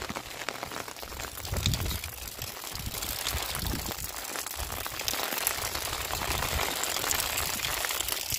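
Rain falling, a steady hiss with fine crackling patter that grows louder a few seconds in, with a few low thuds of footsteps on stony ground.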